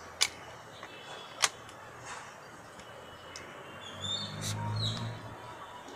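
Sharp metal clicks, two within the first second and a half, as the spring-loaded jaws of a Snap'n Grip self-adjusting wrench snap onto a rusty pipe fitting. From about four seconds in a low hum and high chirping come in.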